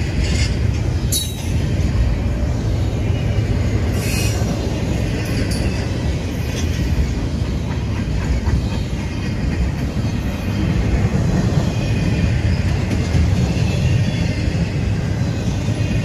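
Double-stack intermodal container train rolling past: a steady, heavy rumble of well-car wheels on the rails, with a few brief high-pitched metallic sounds about one second and four seconds in.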